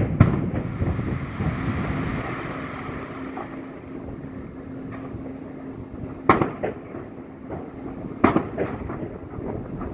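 Aerial fireworks shells bursting: a sharp bang at the start, then a hissing crackle for a few seconds, then two more loud bangs about six and eight seconds in with a few smaller pops around them. A faint steady hum runs underneath.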